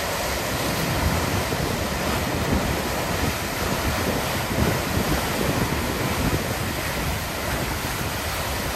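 Water rushing steadily through a hydroelectric dam, an even roar with no breaks.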